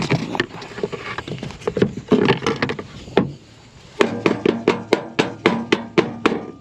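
Combine cab air filter and its housing being worked loose and handled: irregular clattering knocks, then from about four seconds in a fast run of about a dozen sharp knocks, roughly five a second, with a ringing tone, as the filter is knocked against a hard surface.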